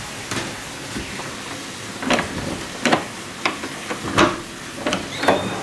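Steady hiss of heavy monsoon rain, with a series of sharp knocks about every second from two seconds in, footsteps on a hard floor.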